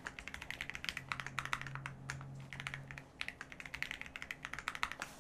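Typing on a computer keyboard: a rapid run of key clicks, with a short pause about three seconds in.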